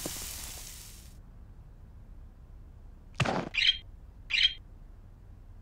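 The rumble of an explosion dying away over the first second. Then, about three seconds in, a cartoon bird gives a short harsh call followed by two quick chirps.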